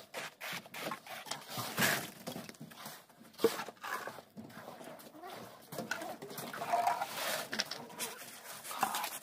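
Irregular scrapes and slaps of a hand tool working wet concrete over steel reinforcement mesh, with one sharp knock about three and a half seconds in. A few short pitched calls sound in the background around the middle and near the end.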